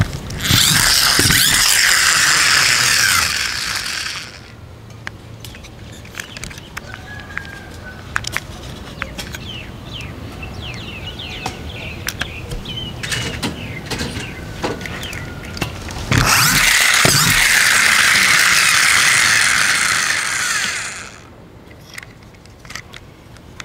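Small plastic toy stunt ATV's gear mechanism whirring loudly twice, each run lasting about four to five seconds, with clicks and rattles of the plastic toy being handled in between.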